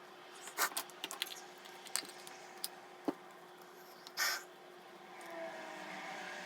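Scattered clicks and taps of makeup containers and tools being handled, with a short hiss about four seconds in.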